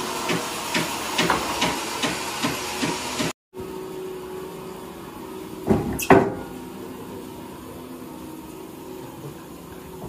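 Band sawmill machinery running with a steady hum and a regular knocking about twice a second. After a break, the hum is quieter, and two heavy wooden thuds come about six seconds in as a sawn beam is set down on a wheeled cart.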